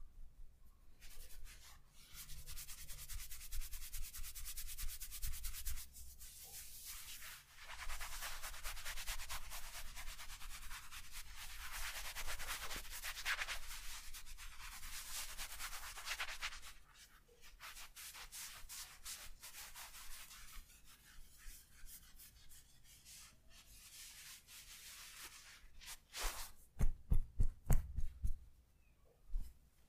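Hands massaging bare skin with quick back-and-forth rubbing strokes, a dense hissing friction that pauses briefly now and then. Near the end comes a quick run of sharp massage taps, the loudest sounds here.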